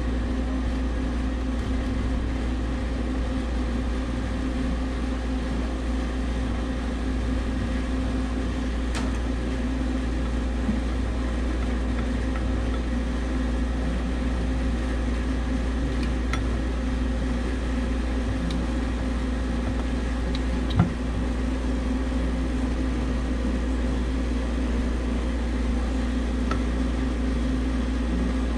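Steady machine hum at a constant level, holding a low drone and a steady mid tone, with one sharp knock about twenty-one seconds in and a few faint ticks.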